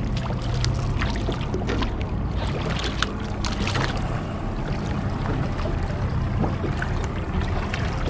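Steady low hum of the boat's motor, with water splashing against the hull as a hooked striped bass thrashes at the surface.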